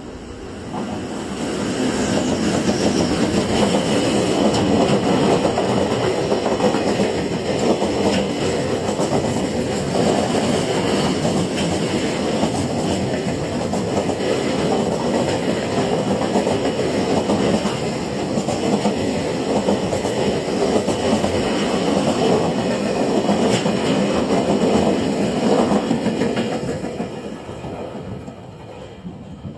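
A JR Freight train running past close by, a long, steady rush of wheels on rails that builds over the first couple of seconds, stays loud, then fades away near the end.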